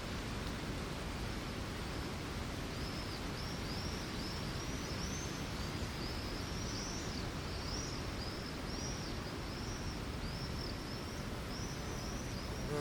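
Lakeside morning ambience: a steady outdoor hiss and low rumble, with a bird calling in a run of short, high, arched chirps, about two a second, starting a couple of seconds in.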